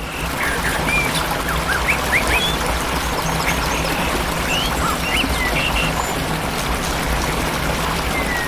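Steady rush of falling water, with birds chirping in short, rising and falling calls throughout.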